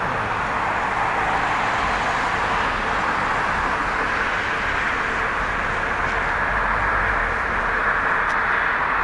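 Jet airliner on final approach: a steady jet-engine rush that builds slightly as the aircraft comes closer.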